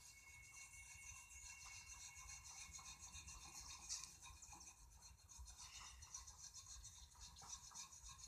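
Faint, rapid scrubbing of a brass wire brush on the hot, freshly twisted steel bar, the strokes melting brass onto the steel to colour it gold.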